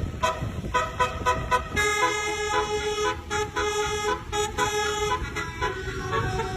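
Multi-tone telolet (basuri) horn playing a melody. Short rhythmic notes lead into longer held notes about two seconds in, and short notes return near the end, over a low rumble.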